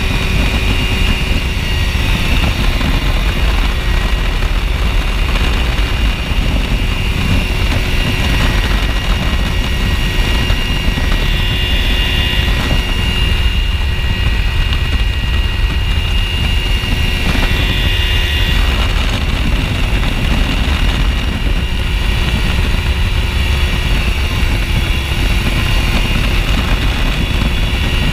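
Ultralight aircraft engine and propeller running steadily at cruise, heard from on board, with heavy wind rush on the microphone. A steady hum and a faint high whine ride over the rumble.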